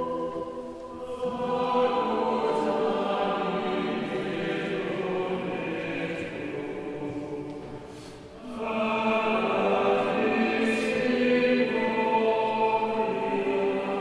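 Choir singing a slow sacred chant with long held notes in a reverberant church. The singing drops away briefly about eight seconds in and then comes back fuller.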